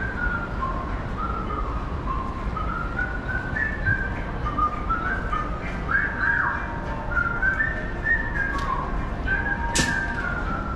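A simple whistle-like tune, a single line of high notes stepping up and down, over steady background noise; a sharp click near the end.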